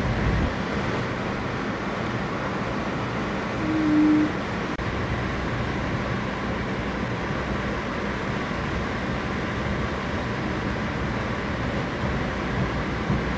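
Steady running rumble of an Amtrak passenger train, heard from aboard as it rolls along a street track. A brief single tone sounds about four seconds in.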